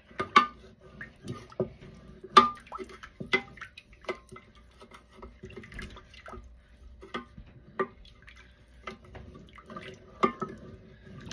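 Wooden spoon scraping and knocking around the inside of a small stainless steel pot, swirling a little water to rinse out the last of the sauce. Irregular clicks and knocks, the loudest about two and a half seconds in.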